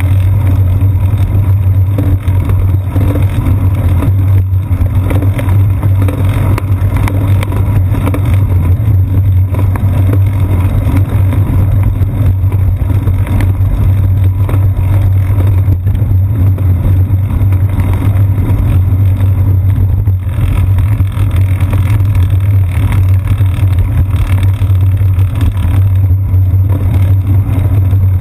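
Loud, steady low rumble of a bicycle riding along a concrete sidewalk, picked up through a GoPro Hero 2 camera mounted on the seat post.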